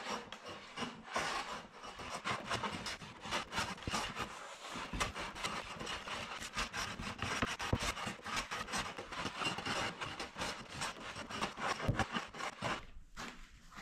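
Hand plane shaving across a wide wooden tabletop in many quick scraping strokes, with a short pause near the end.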